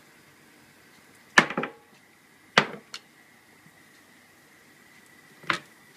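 Hard knocks against a ceramic plate: three sharp clinks, the first two about a second apart with small rebounds, the third near the end.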